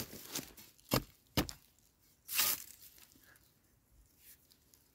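Digging in dry, root-filled soil around a wild yam tuber: three short sharp knocks within the first second and a half, then a louder scraping rush of soil about two and a half seconds in, followed by faint small scrapes.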